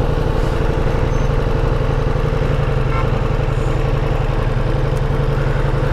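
Ducati Multistrada V4S's 1158 cc V4 engine running steadily at low revs, its pitch unchanging.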